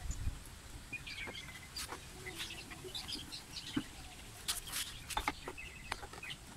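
Birds chirping, with a few sharp clicks and knocks from the plastic headlight visor of a Honda Dio scooter being handled and pressed into place. The clicks are the loudest sounds, one at the very start and a cluster around four to five seconds in.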